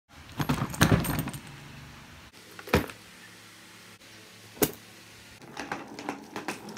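Scattered clicks, knocks and rustling of things being handled: a flurry in the first second and a half, two single sharp clicks in the middle, and a run of small clicks near the end.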